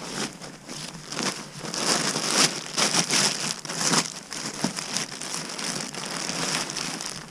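Hands rummaging through a backpack, with stuff sacks and bags crinkling and rustling in irregular strokes, loudest from about two to four seconds in.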